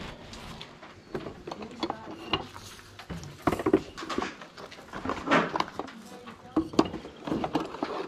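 Small objects clicking and knocking as a hand rummages through a box of odds and ends such as pens, tape rolls and trinkets, with a scatter of sharp, irregular clatters.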